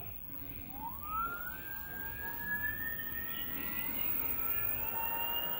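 A 48V/52V 1000 W brushless gearless direct-drive rear hub motor spins up its 700c wheel under power. It whines with several tones at once: the whine rises quickly about half a second in, then keeps climbing slowly as the wheel gains speed.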